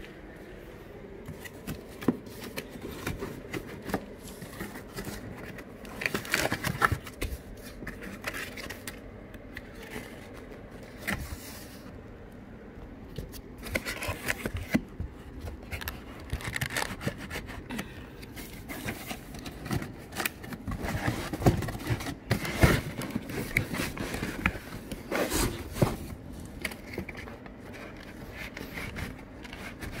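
Cardboard packaging being handled: irregular scraping, rubbing and knocks as dinner plates are pulled out of corrugated cardboard dividers in a shipping box.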